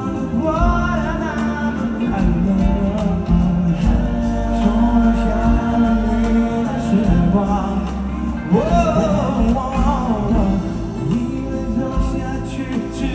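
Live band music with a steady bass and drum bed, and wordless sung runs with wavering pitch over it, about a second in and again near the end.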